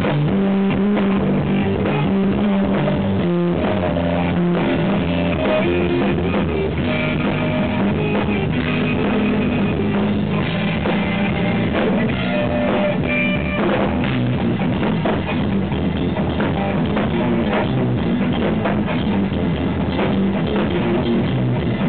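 Live jazz-rock fusion trio of electric guitar, electric bass and drum kit playing. The recording is loud and overdriven, with a muffled top end.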